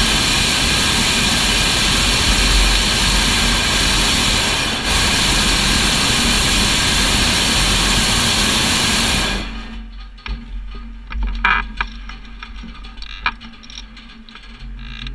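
Hot air balloon's propane burner firing in one long, loud, steady blast of about nine seconds, then shut off. A few faint clicks follow in the quieter stretch after it.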